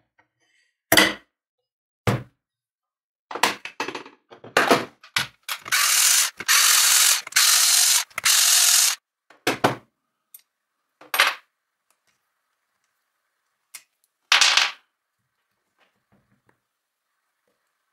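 An angle grinder's parts being taken apart by hand: sharp clicks and knocks of metal and plastic, a quick run of them a few seconds in. In the middle comes about three seconds of steady mechanical noise, broken by short gaps.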